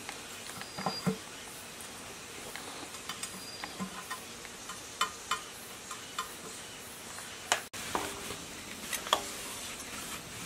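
Small metal clicks and taps as a gasket, cover plate and nuts are fitted by hand onto a diesel engine block, with a few louder knocks near the end. A steady hiss runs underneath.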